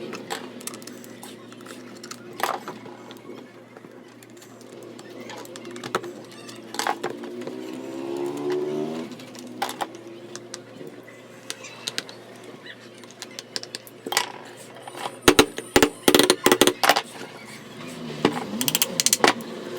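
Sharp metal clicks and clinks of hand tools on a ceiling fan's metal body as its cover bolts are tightened, scattered at first, then a quick run of loud sharp knocks about three quarters of the way through.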